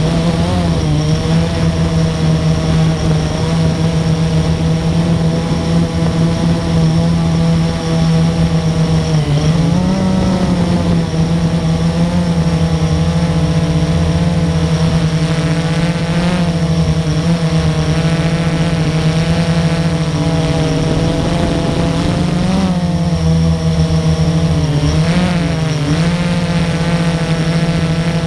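Blade 350QX quadcopter's four brushless motors and propellers whirring steadily, heard very close from the camera mounted on the drone. The pitch briefly rises and falls a few times as the motors change speed.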